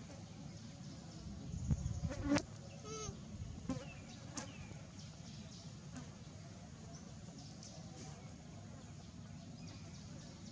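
Steady low buzzing hum, with a few brief knocks between about two and four and a half seconds in, the loudest at about two seconds.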